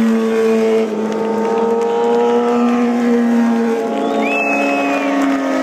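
MotoGP race motorcycle engines running at high revs as bikes pass, a steady high engine note that drifts slowly in pitch. A thin higher whine comes in briefly about four seconds in.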